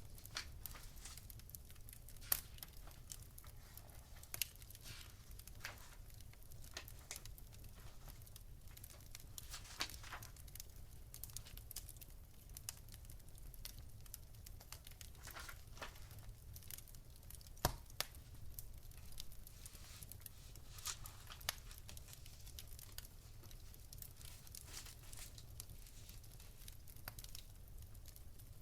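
Wood fire crackling: irregular small pops and snaps over a low steady rumble, with a louder snap about two seconds in and another just past halfway.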